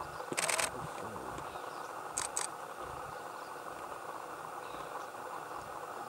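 Camera shutter firing a quick rapid-fire burst near the start, then two short shots about two seconds in, over a steady background hiss with a faint high steady tone.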